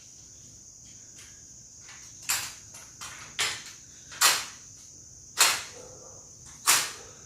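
Metal arms of an adjustable steel appliance trolley frame sliding and knocking as the frame is worked outward to extend it: about six short scraping clunks, roughly a second apart, starting about two seconds in.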